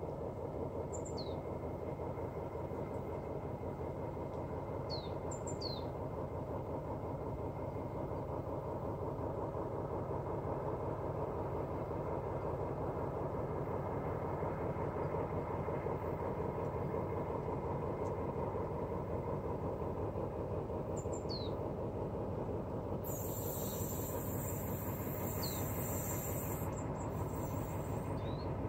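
Steady low rumble of the freight train's diesel locomotives approaching from a distance, slowly growing louder from about halfway. A bird gives short descending chirps a few times, and a high hiss sounds for a few seconds near the end.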